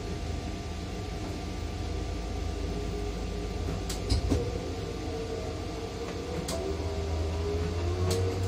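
Potain MC 310 tower crane's drive machinery running with a steady low hum, heard from the operator's cab. From about five seconds in, a whine rises and falls in pitch as the crane slews, and a few sharp clicks sound along the way.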